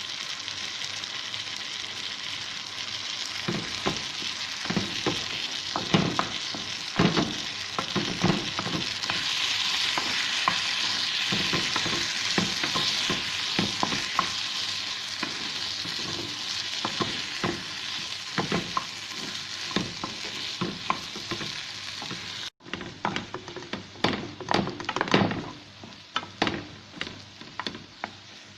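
Bitter gourd (ampalaya) stir-frying in oil in a pan: a steady sizzle, with a spatula scraping and knocking against the pan in quick irregular strokes. Near the end the sizzle is much quieter while the spatula strokes go on.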